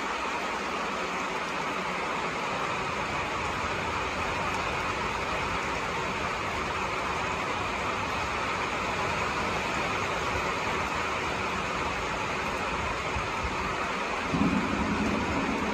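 Steady rain falling, an even hiss. About fourteen seconds in, a brief low rumble rises over it.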